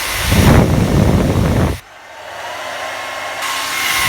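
Hand-held hair dryer blowing, its airstream hitting the microphone in a loud, rumbling gust that cuts off suddenly about two seconds in. The dryer then runs on more quietly with a faint whine, until the airstream hits the microphone again near the end.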